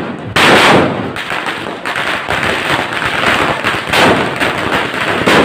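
Firecrackers going off on a street in a rapid, uneven series of sharp bangs, the loudest about half a second in and again near four seconds.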